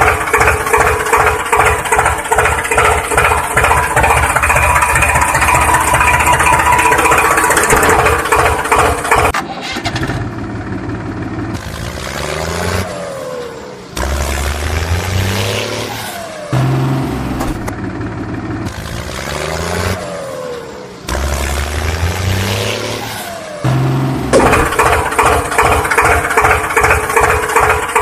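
Tractor engine sound, most likely dubbed over the toy footage. A fast, even chugging idle runs for about nine seconds, then gives way to revving that rises and falls in pitch and climbs in several steps. The chugging idle returns near the end.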